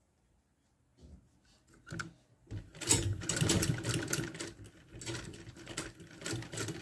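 Sewing machine stitching through satin fabric: a few separate clicks, then from about two and a half seconds in a rapid, continuous stitching clatter.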